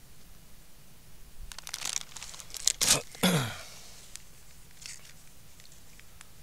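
Plastic food packaging crinkled and then torn open, with two sharp rips about three seconds in.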